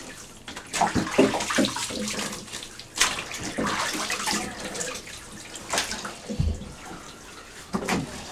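Water splashing and sloshing in a bathtub as a wet Newfoundland puppy is held and rubbed down, in irregular uneven splashes, with a dull low bump about six and a half seconds in.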